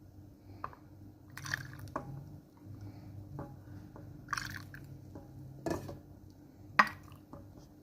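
Kitchen handling sounds while making milk: scattered short clicks and knocks with several brief liquid splashes, over a low steady hum. The sharpest knock comes nearly seven seconds in.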